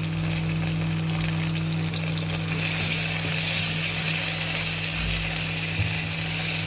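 Ginger garlic paste frying in a pan of onions, a steady sizzle that grows louder about two and a half seconds in, over a steady low hum.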